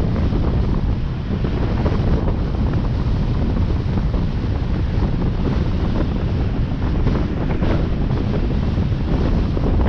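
Steady wind rumble buffeting the microphone of a camera on a moving vehicle, with road noise mixed in.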